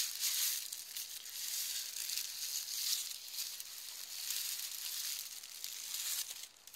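Plastic bubble wrap crinkling and rustling as a wine bottle is pulled out of its bubble-wrap sleeve; the crinkling stops near the end.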